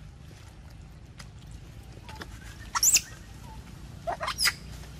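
Macaque monkeys squealing: one short, shrill squeal about three seconds in, then two or three quick rising squeals near the end.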